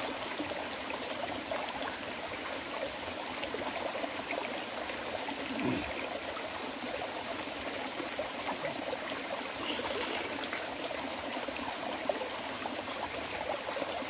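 Shallow mountain stream running over rocks: a steady rush and trickle of water.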